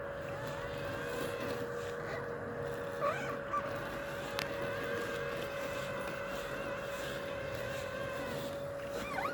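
Worx Landroid M700 robotic lawn mower running with a steady motor whine, while its front wheel squeaks as the mower turns: short squeals about three seconds in and again near the end.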